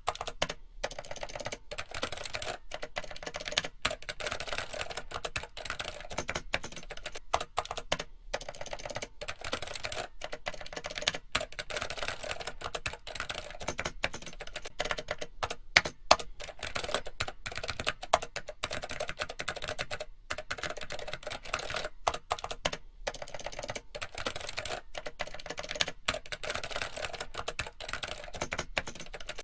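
Rapid, continuous typing on a computer keyboard, many keystrokes a second with brief pauses here and there.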